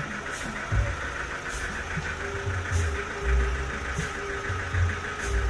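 Engine running at idle, with irregular low thumps and a short hiss repeating about every second and a quarter.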